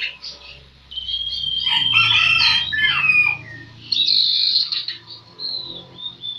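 A young sirpu songbird chirping and whistling in quick, varied high phrases, with a bright trill about four seconds in.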